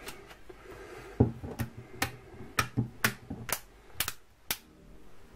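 The snap-on back cover of a Cubot Dinosaur smartphone being pressed onto the phone along its edge, its clips catching with a series of sharp clicks, about two a second.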